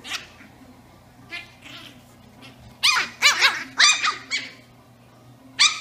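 Brussels Griffon puppies play-fighting, giving high-pitched barks and yips: one yip at the start, a couple of small ones, then a quick string of about six barks from about three seconds in, and one more near the end.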